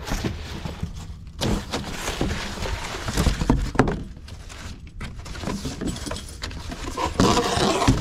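Corrugated cardboard being folded and pushed about on a steel diamond-plate tailgate: scraping and rustling with light knocks, in bunches about one and a half seconds in, around the middle and near the end.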